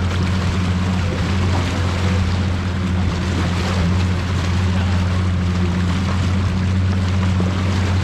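Motorboat engine running at a steady speed, a low even drone with the rush of water and wind noise over it.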